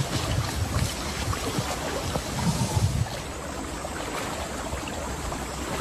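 River water splashing and sloshing around crocodiles feeding in the shallows, with irregular heavy low splashes in the first three seconds. After that it settles to a steadier lapping of water.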